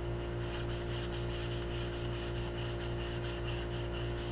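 Gloved fingers rubbing a damp paste over a soft-fired porcelain greenware doll head to clean and smooth it: quick, rhythmic rubbing strokes beginning about half a second in, over a steady low hum.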